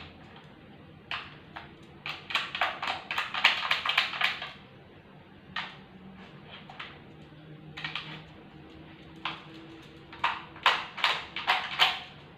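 Poodle nosing and eating from a plastic puzzle feeder: quick runs of clicking and clattering plastic. The runs come about two to four seconds in and again near the end, with a few single clicks between.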